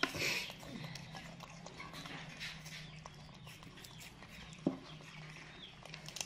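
Baby macaques biting and chewing crisp green apples: a run of wet crunching clicks, with a sharper crack about four and a half seconds in.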